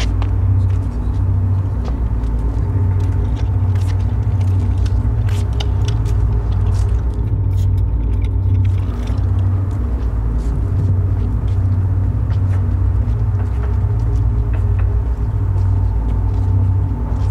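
Deep, loud bass rumble pulsing at a regular rate, with a steady hum of higher tones above it: a film soundtrack drone.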